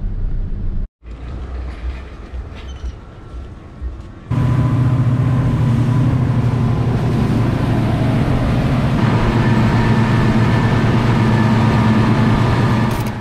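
Twin Mercury outboard motors running at speed, a steady engine drone under the rush of wind and water, starting suddenly about four seconds in. Before that, a few seconds of quieter vehicle sound.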